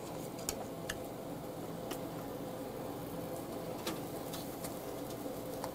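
Marinated meat and beef heart sizzling on a grate over a portable butane grill: a steady low hiss with a few scattered sharp pops and clicks, some from tongs on the grate.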